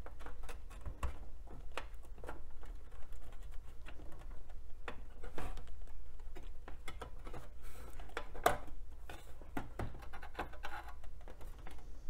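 Irregular light clicks and scrapes of a DIMM memory stick being worked out of its motherboard slot, jammed against the case's metal drive cage.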